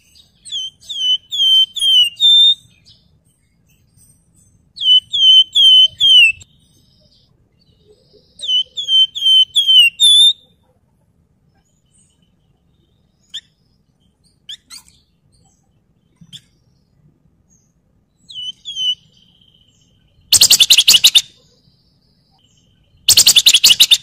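Javan fulvetta (wergan Jawa) singing: three phrases of five or six clear, flute-like descending whistled notes in the first ten seconds, then a few scattered single notes. Near the end come two loud, fast rattling bursts, the rapid 'ngebren' song, about three seconds apart.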